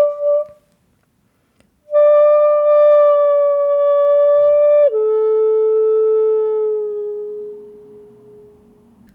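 Hitoyogiri, a Japanese end-blown bamboo flute, playing a short note, then a long held note that steps down in pitch about five seconds in and fades out: the phrase ending brought down with an ori.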